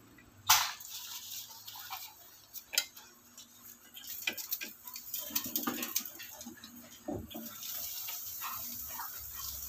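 Wooden spatula knocking and scraping in a non-stick frying pan as a pancake is worked loose and turned, with a few sharp knocks, the loudest about half a second in. A steady sizzle sets in about seven seconds in.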